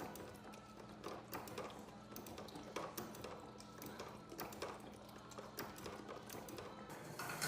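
Irregular light taps and clicks, several a second, over a faint steady low hum.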